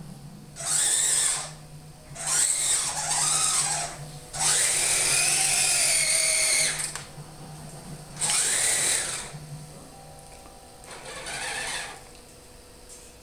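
Small electric motors and gearing of a radio-controlled Kyosho Blizzard SR whirring in five bursts of one to two and a half seconds each, rising and falling in pitch, over a steady low hum.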